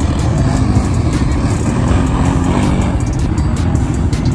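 ATV engines revving as quad bikes ride past over a dirt track.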